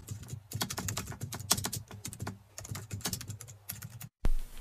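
Rapid, irregular clicking, like fast typing on a keyboard, that stops about four seconds in.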